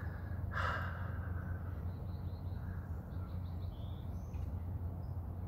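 Outdoor ambience: a steady low hum with faint bird chirps, including a quick run of short chirps about three to four seconds in. There is also a brief soft burst of noise about half a second in.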